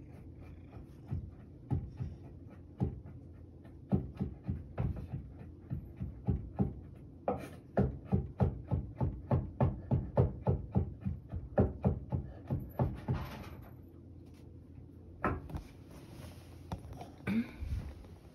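Knife chopping carrot on a cutting board: a few spaced chops, then a quick regular run of about four chops a second, a brief scrape, and a few more chops near the end.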